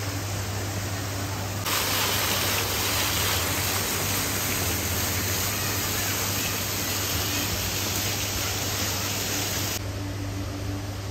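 Running water hissing, switched on abruptly about two seconds in and cut off about a second before the end, over a steady low hum.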